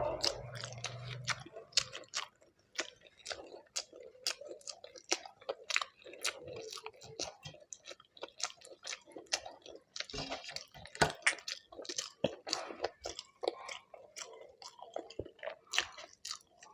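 Close-miked chewing and eating: a steady run of wet mouth clicks and smacks with some crunching, as a mouthful of khichuri with fried vegetables and chicken is chewed.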